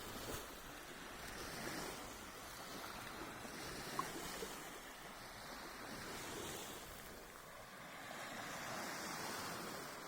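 Small waves of the Sea of Azov washing onto the beach, the surf swelling and easing every couple of seconds. A single sharp click sounds about four seconds in.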